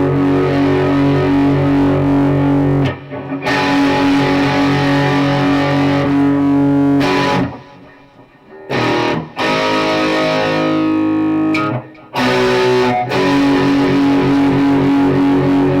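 Electric guitar with Fleor Alnico 5 humbucker pickups playing distorted chords. Each chord is held and left to ring for a few seconds, with short breaks between them, and one chord fades away about two-thirds of the way through.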